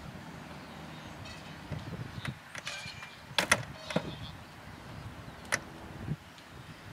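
A few sharp clicks and knocks from around a parked Cessna 172 with its engine not yet running, the loudest about three and a half seconds in and another about five and a half seconds in, over a low steady rumble.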